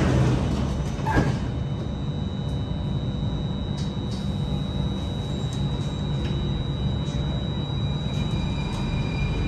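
Interior running noise of a Singapore MRT Circle Line train: a steady low rumble with a thin, steady high tone, and a single knock about a second in.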